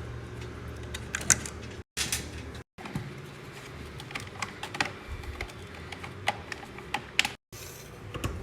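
Irregular light clicks and taps of small metal screws and plastic vacuum-cleaner parts being picked up and handled.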